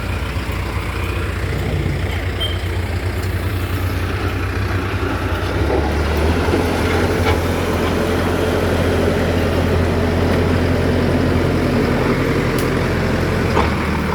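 Heavy diesel engine of road-construction machinery running steadily, with a low drone that grows somewhat louder about six seconds in.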